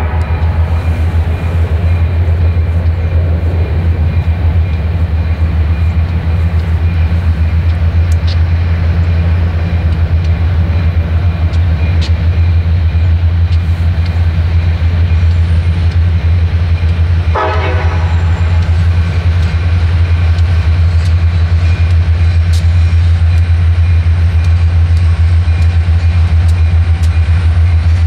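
Norfolk Southern freight train with diesel locomotives approaching, a steady low rumble throughout. A short horn blast sounds about seventeen seconds in.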